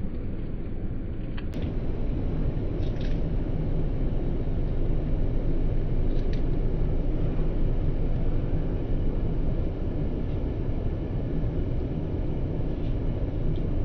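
Steady low rumble of an airliner cabin in flight, the engines and airflow making an even drone, with a few faint ticks.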